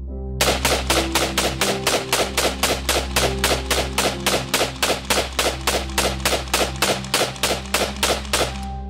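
V-AR piston-operated AR-15 self-loading rifle in .223 Remington fired in rapid, evenly spaced shots, about four a second, for about eight seconds.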